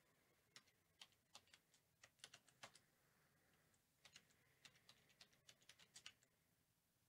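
Faint computer keyboard typing: short, irregular runs of keystroke clicks, quiet in between.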